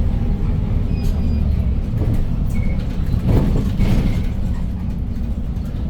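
Inside the cabin of a 2015 Hyundai New Super Aerocity city bus on the move: the steady low rumble of its CNG engine and tyres, with a few short high squeaks and rattles about halfway through.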